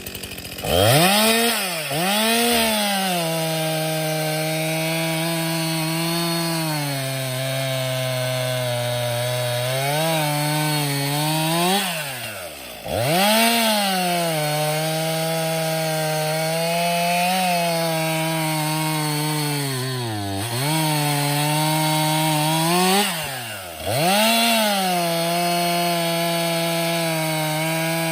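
Stihl MS 261 C-M Mtronic 50cc two-stroke chainsaw, warmed up, cutting wood at full throttle. Its engine note sags as the chain loads in each cut, and it briefly drops off and revs back up four times between cuts.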